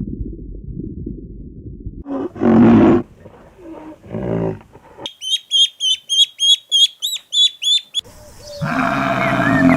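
Farm animal calls in quick succession. A low rumble gives way about two seconds in to a loud drawn-out call and some quieter calls. Then comes a run of high, rapid chirps, about four a second, and near the end another loud animal call with chirps over it.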